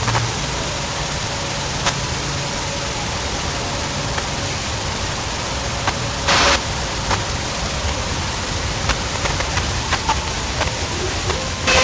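Steady, even rushing noise from a festival sound system during a sound check, with a short louder burst about six seconds in and a few faint clicks.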